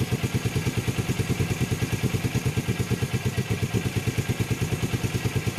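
1981 Suzuki GS450L's air-cooled parallel-twin engine idling with a steady, even exhaust beat.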